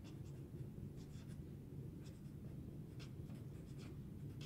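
Felt-tip marker writing on paper: faint, short scratching strokes in small groups about once a second as letters are formed, over a low steady hum.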